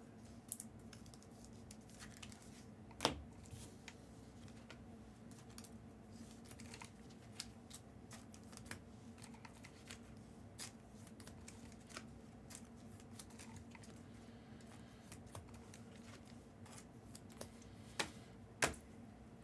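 Faint scattered clicks and ticks over a steady low hum, with a sharper click about three seconds in and two more near the end.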